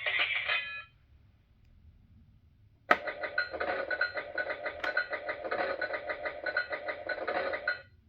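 Fisher-Price Great Adventures castle toy playing its recorded sound effects through a small, tinny speaker. One clip ends about a second in. After a short pause, a click sets off a second clip of about five seconds, a fanfare-like mix of music and cheering, which stops near the end.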